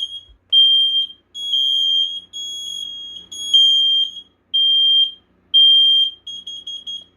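Several interconnected First Alert smoke alarms sounding their piezo horns during a test, out of step with one another: overlapping shrill beeps of about half a second each. They end in a run of short quick chirps shortly before the end.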